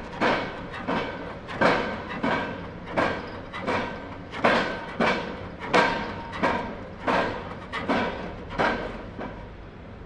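Heavy machinery banging: loud metallic bangs about three every two seconds, each ringing briefly. They stop near the end, leaving a low steady hum.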